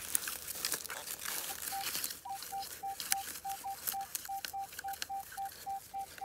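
Metal detector beeping on a target in the dug hole, a run of short beeps of one pitch about three a second that starts about a second and a half in. Dry stubble and soil rustle and crackle around it.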